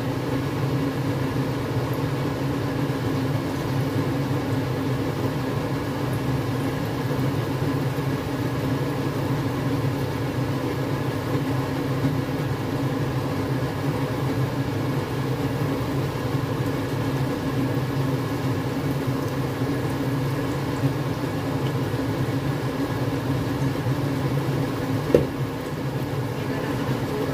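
Flour-coated chicken pieces frying in shallow oil in a wok, under a steady low mechanical hum. A single sharp click comes near the end.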